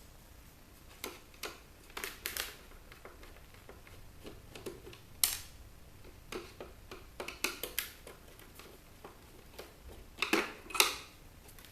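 Irregular light clicks and knocks of hard plastic and small metal parts being handled during disassembly of a car DVD player, with a sharper knock about five seconds in and a few louder clicks near the end.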